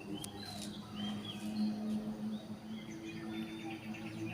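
Small birds chirping with short, high calls, over a steady low hum.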